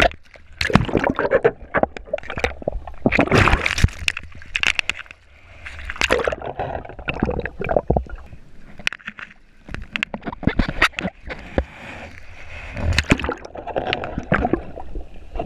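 Sea water splashing, sloshing and gurgling around a mouth-mounted GoPro as it dips in and out of the water, in irregular bursts with a few quieter moments.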